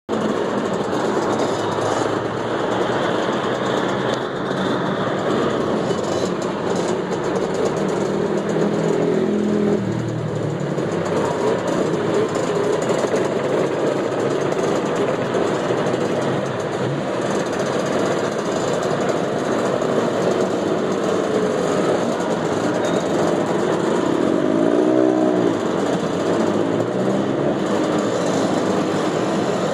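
A group of motor scooters running as they pull away and ride past, their small engines revving up and falling back. Near the end one engine rises and falls in pitch as it revs and passes.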